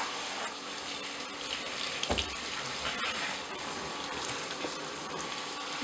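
Handheld shower head running in a bathtub, a steady hiss of spraying water, with a dull knock about two seconds in.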